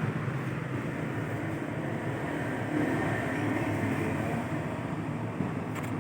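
Steady low mechanical rumble, like a running vehicle engine.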